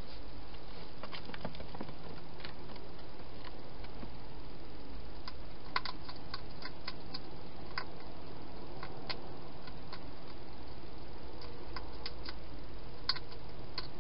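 Hedgehog eating from a bowl inside a plastic feeding box: irregular small crunches and clicks, coming thicker from about five seconds in, over a steady hiss.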